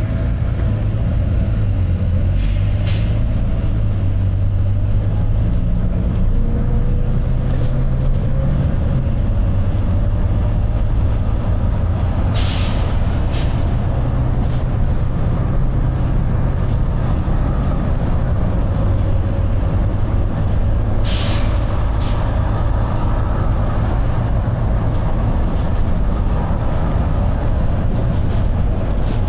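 Volvo B9TL double-decker bus heard from inside while moving at speed, its diesel engine working hard under steady road rumble. Short hisses of air from the bus's air system come about three seconds in, again around twelve to thirteen seconds in, and at about twenty-one seconds.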